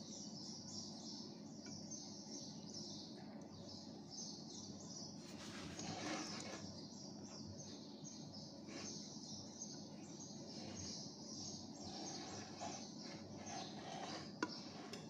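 Faint, continuous chirping of birds in the background over a low steady hum.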